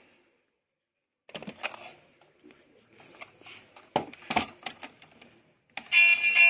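Clicks and knocks of plastic toys being handled, with two sharper knocks about four seconds in. Near the end a toy's battery-powered electronic sound effect starts, loud and made of several steady alarm-like tones.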